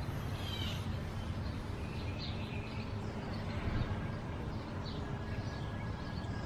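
Crystal set's reception has dropped out while the cat's whisker is moved over the crystal detector in search of a sensitive spot, leaving a steady low hum and hiss. Birds chirp a number of times in the background.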